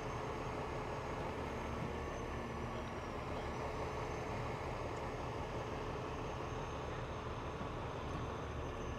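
Steady engine hum of a heavy wrecker tow truck running while its winch holds tension on the cables to the sunken truck.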